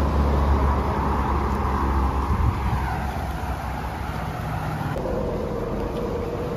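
A motor vehicle's engine running with a low rumble, its pitch sliding down over the first few seconds, then settling into a steady hum about five seconds in.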